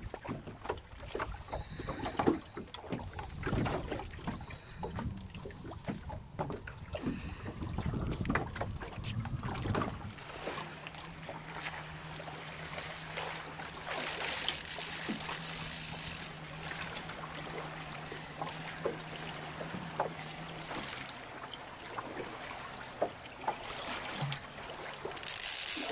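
Fly reel drag buzzing in two loud bursts, about two seconds each, as a hooked fish pulls line off against a bent fly rod. Wind rumble and boat handling knocks come first, then a steady low hum.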